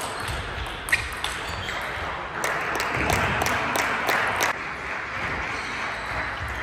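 Table tennis ball clicking sharply off bats and table during a rally. Midway it gives way to a run of quick, evenly spaced ball clicks over a brief swell of noise from the hall.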